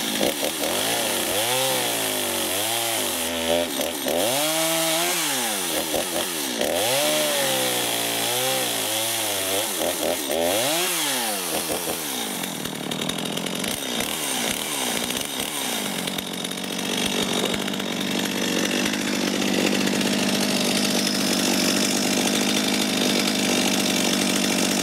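Stihl MS 250 two-stroke chainsaw running on its first operations check. For the first half it is revved up and down again and again, about every second or two. It is then held at high, steady revs.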